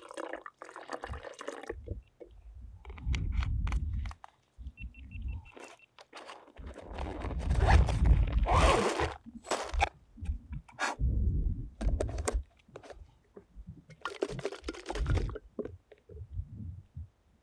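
Water poured from a plastic bottle into a plastic jar, then a plastic bag crinkling loudly as dry couscous is tipped in for cold soaking, and the jar's plastic lid screwed on near the end. Low buffeting on the microphone runs underneath.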